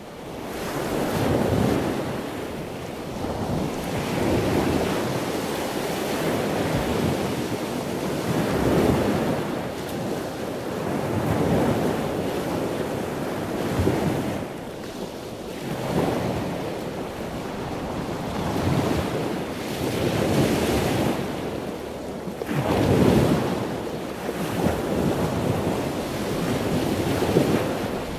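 Ocean surf breaking and washing up a sandy beach, the sound swelling and falling back every few seconds as each wave comes in, with wind buffeting the microphone.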